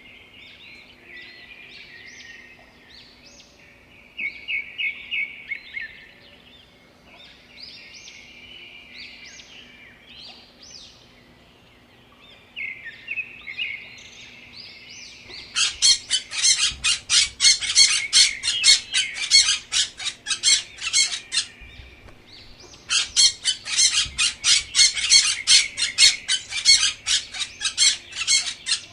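Birds chirping and twittering with varied short high calls and a quick trill. About halfway in, they give way to two long spells of fast, rapid chattering, and these are the loudest part.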